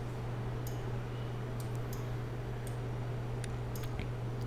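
Faint, scattered computer mouse clicks, about seven in all, over a steady low electrical hum.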